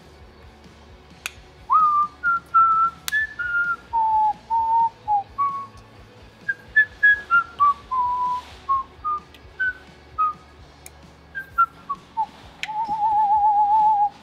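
A person whistling a tune: a run of short notes stepping up and down, ending on a long wavering held note. A few sharp clicks sound along with it.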